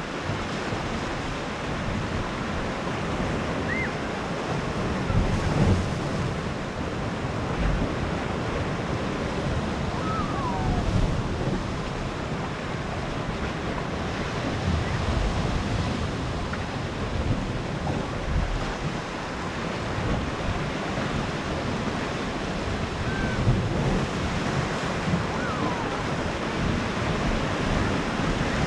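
Sea waves washing onto the shore of a small Mediterranean cove, a steady surf wash with wind buffeting the microphone in low gusts.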